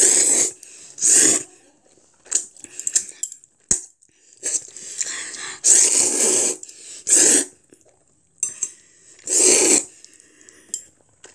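A child slurping instant black-bean-sauce noodles in about six loud, noisy slurps, with metal chopsticks clicking against a ceramic bowl between them.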